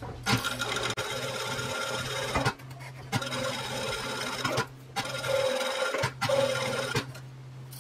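Juki industrial lockstitch sewing machine stitching a seam in four short runs, stopping and starting again as the fabric is guided around a curve. A steady low hum carries on between the runs.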